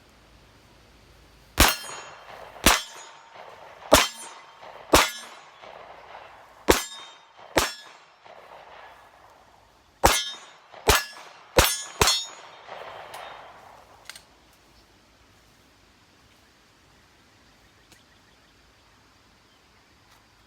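Ten pistol shots from a Glock 30 .45 ACP, fired as six spaced shots and then four quicker ones after a short pause. Each shot is followed by the clang and ring of a steel target being hit.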